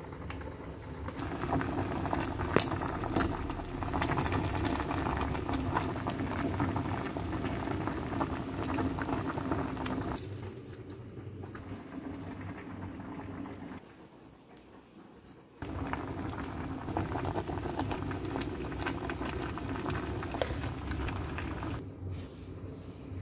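A pot of water boiling hard on the stove, bubbling and crackling steadily. The sound drops away for a few seconds around the middle, then returns.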